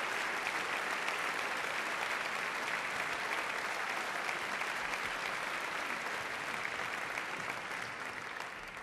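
A large audience applauding, a dense, steady clatter of many hands clapping that begins to die away near the end.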